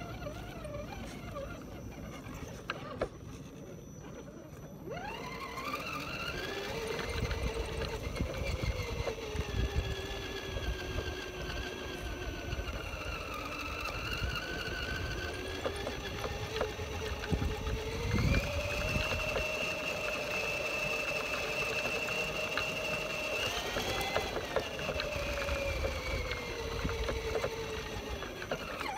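Radio-controlled Axial Jeep Rubicon driving, heard from on board: its electric motor and gears whine, the pitch rising and falling with speed, over a low rumble of the wheels on the ground. The whine starts about five seconds in.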